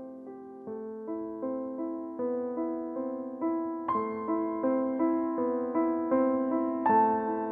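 Background music: a piano playing slow, evenly spaced notes about every three-quarters of a second, gradually getting louder.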